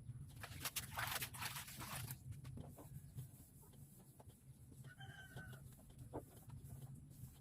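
A chicken clucking, one short call about five seconds in, over a low steady hum. A brief rustle near the start.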